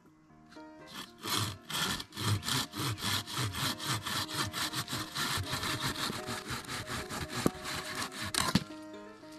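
Hand saw cutting through a dry deadwood branch in quick, even back-and-forth strokes, starting about a second in and stopping shortly before the end.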